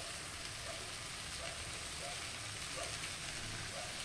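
Chicken pieces, green pepper and onion frying in a pan in a soy and cane-molasses sauce, giving a steady, fairly quiet sizzle.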